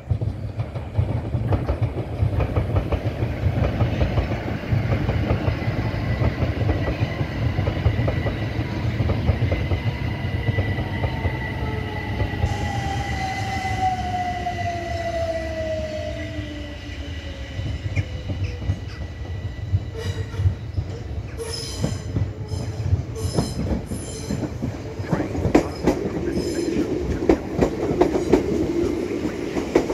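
Electric multiple-unit trains on the main line: a continuous low rumble of wheels on track, with a falling whine from about 10 to 16 seconds in as one train goes by. From about 20 seconds in, the wheels click over rail joints and points as a second train draws into the platform.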